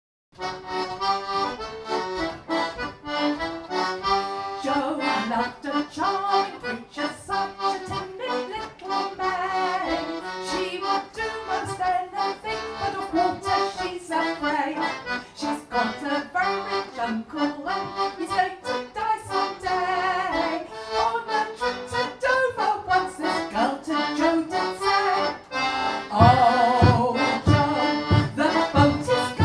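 One-row, four-stop melodeon playing a lively instrumental tune. A heavier low beat comes in about twice a second near the end, and the music grows louder there.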